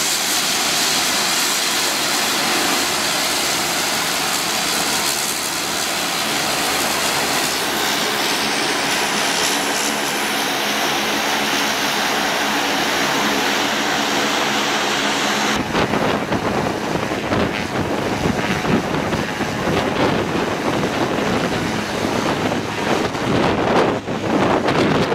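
Propeller plane engine at takeoff power, a steady loud drone with a faint steady whine. About fifteen seconds in it switches abruptly to rough, gusting wind on the microphone over the engine noise.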